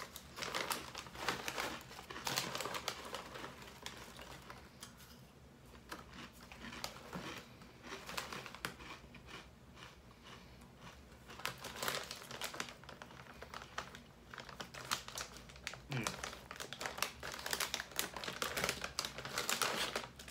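Foil snack bag crinkling and hard, crunchy corn snacks (Corn Nuts Crunch Mix) being chewed: clusters of rapid crisp crackles with short pauses between them.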